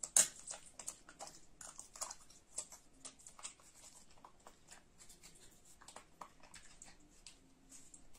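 A monkey eating: a metal spoon clinks against a ceramic bowl once, sharply, just after the start, then many small quiet clicks of chewing and lip-smacking as it eats apple slices.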